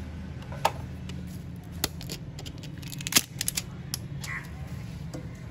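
A handful of sharp clicks and taps as a new spin-on oil filter is taken out of its cardboard box and handled, the loudest a little past three seconds in, over a steady low hum.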